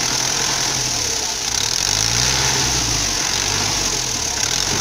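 FIAT 640 tractor's four-cylinder diesel engine running under load, the revs rising and falling about two seconds in, as the tractor tries to pull itself out of deep mud.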